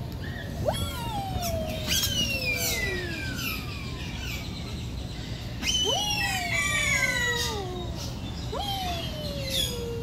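Wattled curassows calling with long whistles. Each starts with a sharp upward jump and then glides slowly down in pitch over two or three seconds, several in turn and sometimes overlapping.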